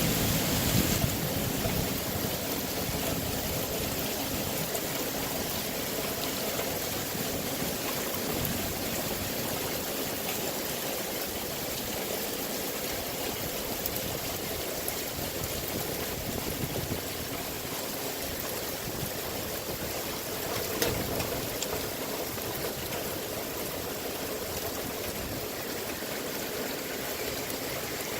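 Heavy thunderstorm rain pouring down steadily, with floodwater rushing; a brief louder splash about three quarters of the way through.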